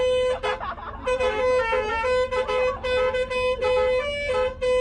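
Basuri multi-tone bus air horn ('telolet') played by hand: a fast tune of short, clear horn notes changing several times a second, with a brief break about half a second in.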